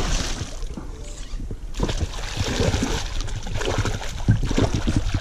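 Water splashing and sloshing around a small fishing boat, with scattered knocks and clatter, as a big fish is brought in at the boat. A steady low rumble of wind on the microphone runs underneath.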